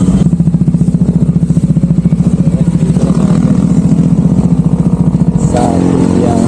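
A vehicle engine running with a rapid, even pulsing that stops about five and a half seconds in.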